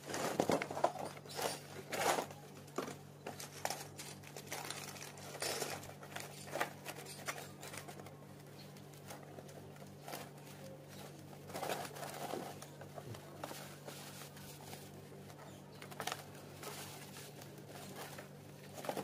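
Protective plastic film being peeled off a clear corrugated plastic roofing sheet by hand, crinkling and tearing in short, irregular bursts. A steady low hum runs underneath.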